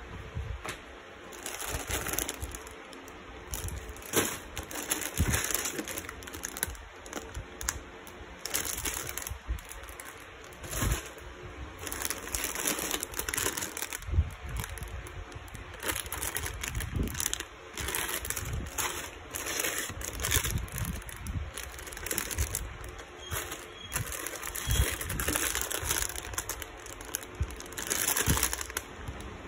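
Clear plastic bags crinkling and rustling as bagged plastic model-kit runners are lifted and handled, with occasional soft knocks against the cardboard box.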